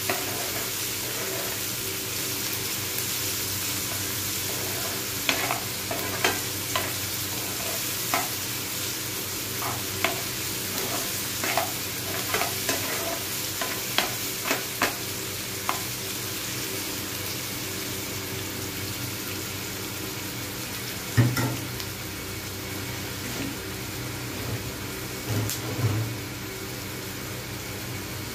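Chopped onions sizzling steadily in hot oil in a frying pan. A steel spoon scrapes and clicks against the pan as they are stirred, with many clicks in the middle stretch and one heavier knock later.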